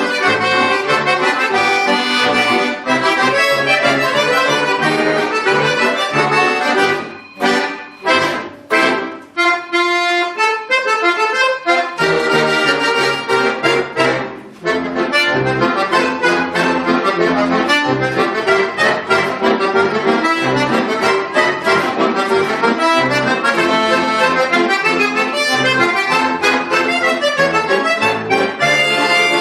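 Bayan (Russian button accordion) playing a piece in full chords with bass. About seven seconds in the bass drops out for a lighter passage of short, detached treble chords with brief gaps, and the full sound returns about twelve seconds in.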